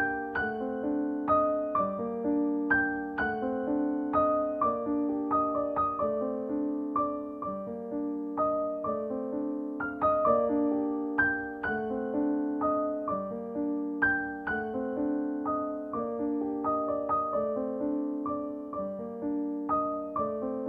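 Background piano music: a melody of struck notes over held lower notes that change about once a second.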